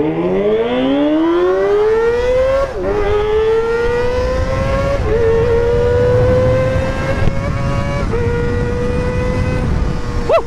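Kawasaki ZX-25RR's high-revving inline-four engine through a Pro Liner aftermarket exhaust, accelerating hard. The revs climb steeply to a high wail, then dip briefly on upshifts three times, about 3, 5 and 8 seconds in, holding high and steady between shifts.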